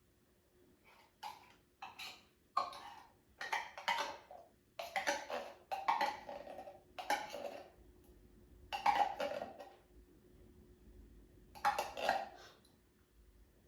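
Kitchen utensil scraping against a container while sweetened condensed milk is added to chocolate chips. It comes as a run of short scraping strokes in irregular groups, with a pause of about two seconds near the end.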